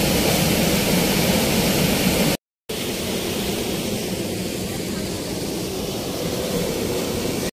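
Steady rushing roar of a waterfall and river water, with wind buffeting the microphone. The sound cuts out for a moment about two and a half seconds in, then resumes as a slightly quieter steady rush.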